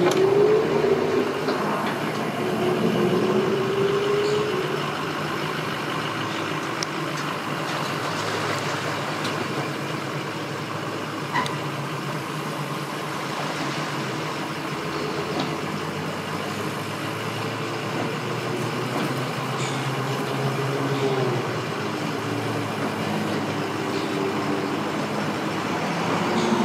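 Engine idling at low speed, with its pitch rising briefly near the start and again a few seconds in, as a boat trailer is backed down a launch ramp.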